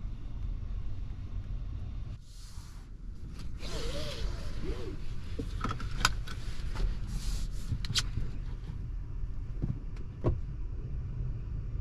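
Rustling and a few sharp clicks inside a stationary car's cabin, over a steady low rumble.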